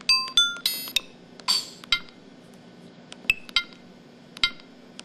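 Built-in electronic sound effects of a Samsung SPH-X9100 mobile phone: three quick bright chime tones in the first second, a brief hissy burst about a second and a half in, then a few scattered short ticks and blips.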